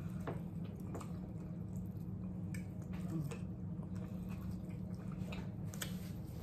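People eating baked chicken and rice: wet chewing and mouth sounds with scattered light clicks, over a steady low hum.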